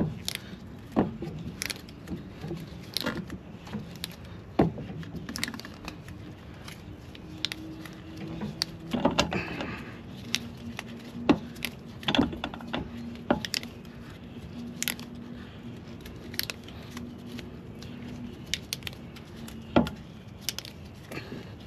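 Car's factory scissor jack being cranked by hand, its crank rod and screw giving an irregular series of metallic clicks and clinks, as the jack presses a wood block down on the tire sidewall to break the bead.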